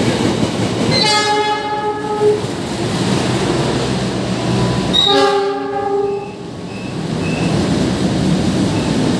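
CC206 diesel-electric locomotive sounding its multi-tone horn twice, each blast a little over a second long and the second about four seconds after the first. Under the horn runs the steady rumble and wheel clatter of the passenger train passing close by.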